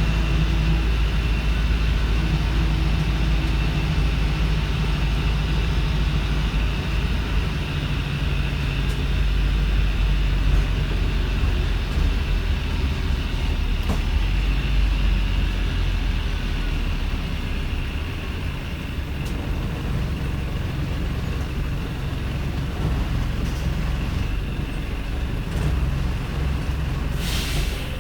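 Wrightbus StreetLite's Mercedes-Benz OM934 four-cylinder diesel idling roughly with a steady low drone. There is a short hiss of released air near the end.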